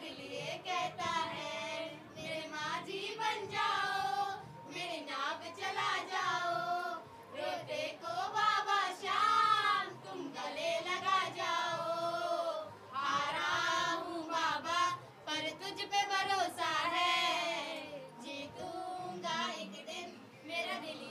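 A high voice singing a slow song with long, wavering, ornamented notes.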